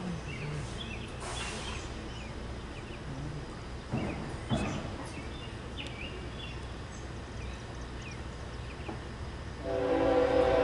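Locomotive air horn sounding near the end, a loud chord of several steady tones that starts abruptly, over a low rumble.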